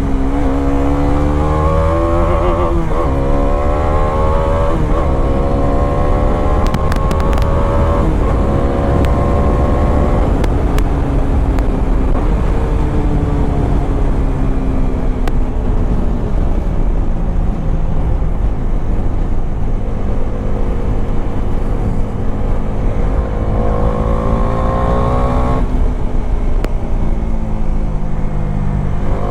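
Bajaj Dominar 400's 373 cc single-cylinder engine pulling hard on the move. The revs climb for the first several seconds, then sink slowly as the throttle eases, and climb again before a sudden drop in pitch about 25 seconds in, an upshift. A heavy low rush of wind on the microphone sits under the engine.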